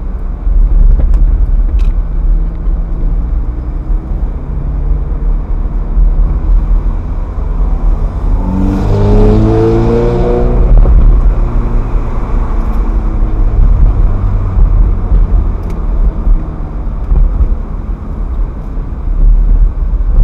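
Ferrari F430's V8 engine driving along at a steady low rumble, then accelerating about eight seconds in, its pitch rising sharply for a few seconds before it settles back to cruising.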